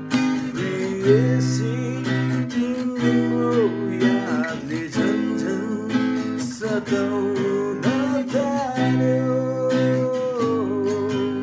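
Steel-string acoustic guitar strummed and picked in a flowing chord pattern, with a melody line that bends and wavers in pitch above the chords.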